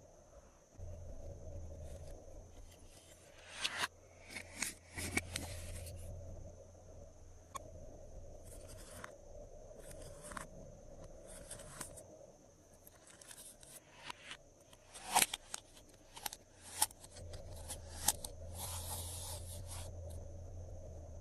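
Glossy slime being worked by hand, with irregular sticky clicks, pops and short crackles, over a faint steady hum.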